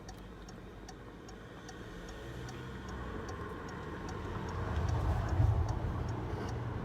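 Light, regular ticking, about two to three ticks a second, over a low hum that swells in the second half.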